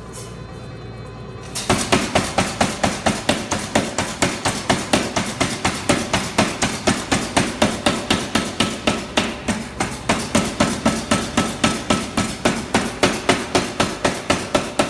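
Chambersburg 200 lb air-driven utility power hammer running, its ram and flat dies striking in a rapid, even rhythm of about three to four blows a second. The blows start abruptly about a second and a half in, after a steady hum.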